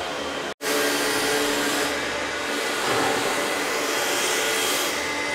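A floor-roughening machine grinding grooves into a concrete slatted barn floor: a steady, loud whirring grind of its electric motor and grinding heads. The sound cuts out for an instant about half a second in, then carries on unchanged.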